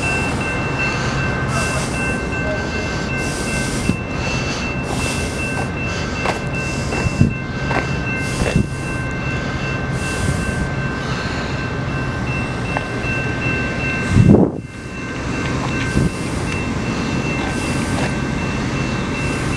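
Freight train cars rolling past at close range: a steady rumble and rattle of wheels on the rails, with a steady high-pitched tone over it. A loud low thump about fourteen seconds in.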